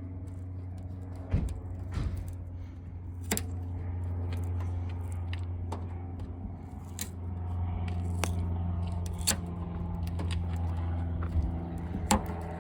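Plastic trim clips or plugs being pried and popped out of a car's trunk lid: a scattering of sharp clicks and scrapes over a steady low mechanical hum.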